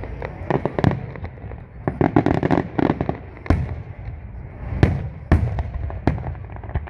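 Aerial fireworks shells bursting in an irregular series of bangs, with a quick run of reports about two seconds in and several strong single bangs in the second half.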